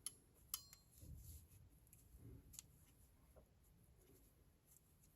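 Near silence broken by a few small, irregular clicks and faint handling noise, one with a brief metallic ring, as paper strips are worked in under the balance of a mechanical clock movement to stop it.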